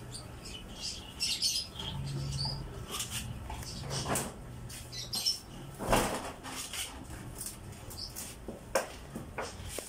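Utility knife blade cutting and scraping a groove into the rubber outsole of a sneaker, in short irregular strokes. The groove is the channel for the stitching thread, cut before the sole is sewn.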